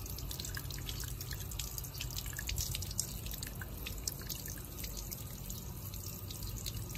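Garden-hose water forced through the pressure port of a twin-pipe jet ejector, welling out of the other port and dripping and splattering in a quick, irregular patter, over a steady low hum.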